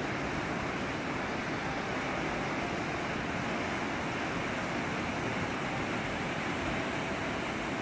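Waterfall: water rushing and falling in a steady, unbroken roar.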